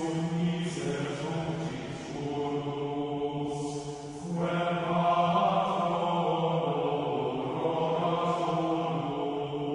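Slow sung chant, voices holding long notes, as background music; a new phrase begins about four seconds in.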